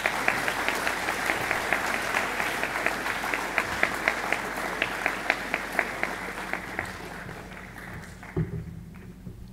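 An audience applauding, with one clapper standing out in a steady beat of about three claps a second; the applause dies away over the last two seconds, and a low thump sounds near the end.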